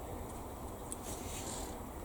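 Quiet room tone with a faint tick and a brief, faint high rustle about a second in.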